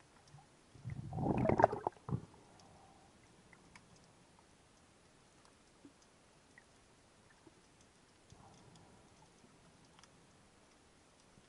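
Underwater recording: a short gurgling, bubbling rumble about a second in, lasting just over a second. After it, only faint scattered clicks.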